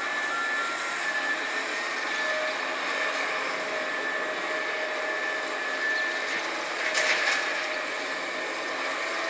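Steady mechanical drone with a high whining tone and a lower hum running over it, from machinery in a built-up area; a brief louder rush about seven seconds in.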